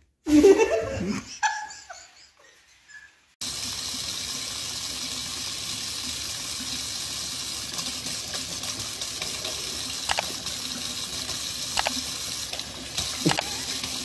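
Kitchen faucet running a steady stream into a sink, a constant hiss of water, with a few sharp ticks over it near the end. Before the water starts, about three seconds in, there is a short loud sound with a sliding pitch in the first second or so.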